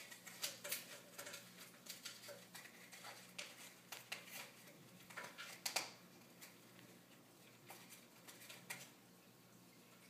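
Blue-and-gold macaw making faint, irregular clicks and taps, several a second at first and thinning out after about six seconds. A low steady hum lies underneath.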